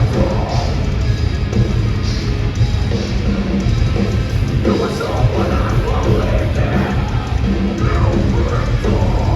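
A band playing heavy metal loud through a festival sound system, with pounding drums and distorted guitars.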